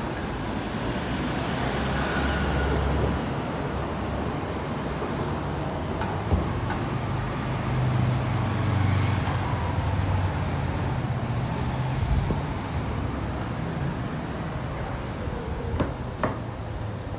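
Road traffic on a city street: cars passing with engine and tyre noise, and a motorcycle engine passing close by about halfway through, where the low hum is strongest. A couple of short knocks are heard.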